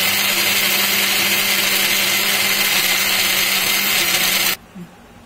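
Electric mixer grinder (mixie) motor running at full speed, blending frozen banana pieces and milk in its jar: a loud, steady whir over a steady hum that cuts off suddenly about four and a half seconds in.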